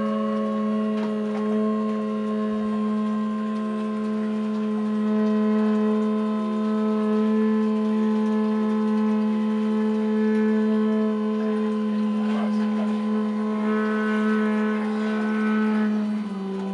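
Background music: sustained synthesizer chords, with a few short higher notes joining in toward the end and a chord change just before the end.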